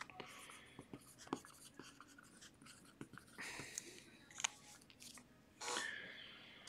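Sharpie marker writing on a clear plastic card holder: faint scratchy strokes with scattered small clicks, the longest strokes about three and a half and nearly six seconds in.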